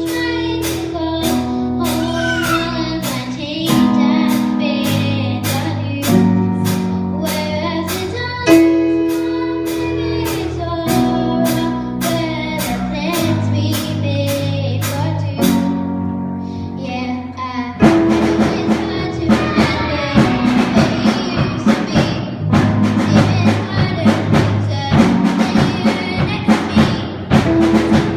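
Live band playing: sustained piano chords over bass with a steady cymbal tick about twice a second, then the full drum kit comes in about two-thirds of the way through and the band plays on together.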